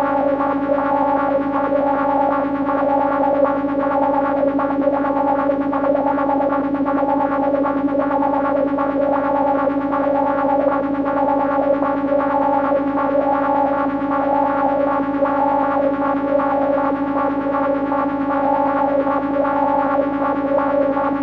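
Negistor Cracklebox DIY drone generator sounding a steady, distorted electronic drone, several held tones stacked over a low note, passed through a dual auto-filter that makes the upper tones waver.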